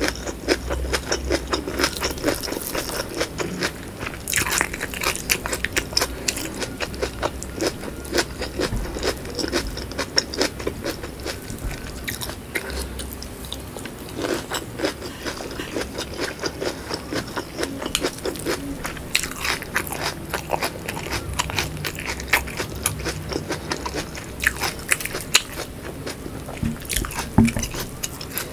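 Close-miked eating: biting into and chewing sambal with whole shallots, a continuous run of crunches and chewing clicks.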